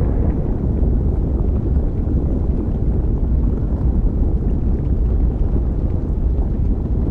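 Lava-planet volcanic ambience: a steady, deep rumble that holds at an even level, with no separate events.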